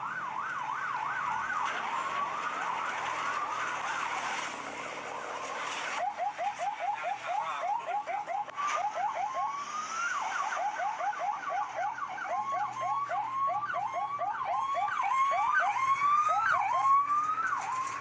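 Toy police car's electronic siren sounding: fast repeated rising sweeps, a short break about six seconds in, then sawtooth sweeps that climb and drop sharply, changing speed.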